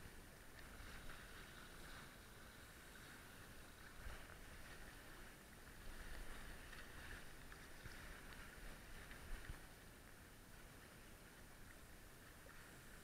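Faint water rush and splashing against the hulls of a small sailing catamaran under sail, with a few louder splashes around the middle.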